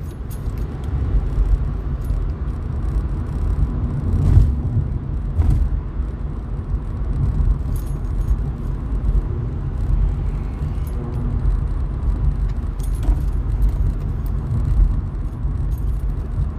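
Car cabin noise while driving: a steady low road and engine rumble, with a few light clicks and rattles now and then.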